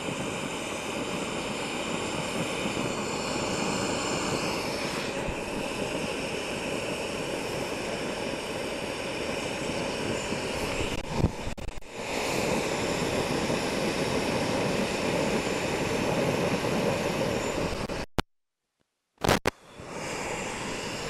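Jetboil Zip gas canister stove burning at full flame under a full pot of water, a steady hiss with faint steady tones. The sound drops out briefly near the end.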